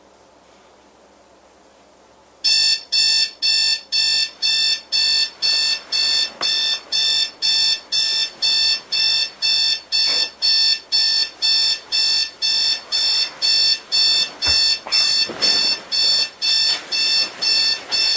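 Faint room hiss, then about two and a half seconds in an electronic wake-up alarm starts beeping: loud, high-pitched beeps repeating evenly at about two a second. A faint thump and rustle come near the end.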